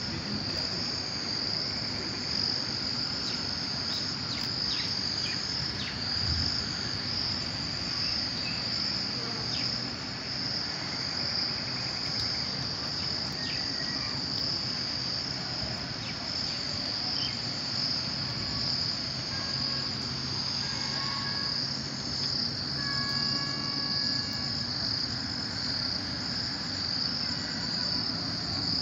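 Insects calling in a steady, high-pitched chorus that keeps up without a break.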